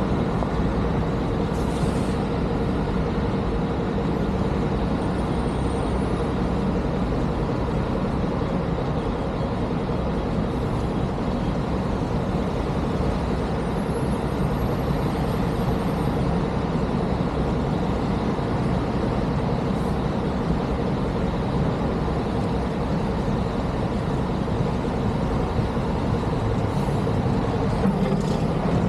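Engines of heavy snow-removal vehicles running steadily, with a steady low drone and a faint hum on one pitch throughout.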